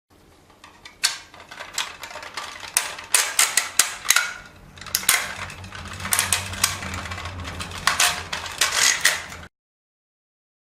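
A rapid, irregular run of sharp clicks and knocks, like hard parts being handled and snapped together, with a low hum underneath from about halfway. It cuts off suddenly near the end.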